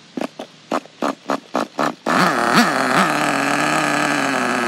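Small nitro engine of a Redcat Tornado S30 RC car revving in a quick series of short throttle blips, about three a second, then held wide open with its pitch swooping up and down twice before settling into a steady high-revving run that cuts off abruptly.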